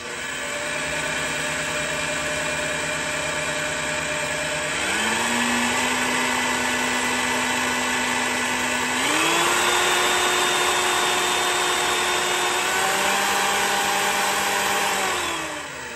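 Klutch benchtop drill press running free in high range with its variable-speed drive. The motor and gear whine steps up in pitch in stages and grows louder as the speed is turned up from about 500 to 2600 RPM, then winds down near the end. The owner calls it noisy and guesses that straight-cut metal gears inside are the cause.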